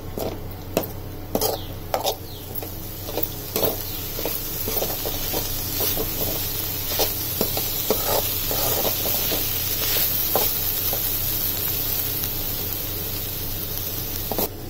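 Spinach and grated-coconut fry sizzling in oil in a pan while a ladle stirs it, scraping and knocking against the pan. The knocks come thickest in the first few seconds and again about halfway, over a steady sizzle.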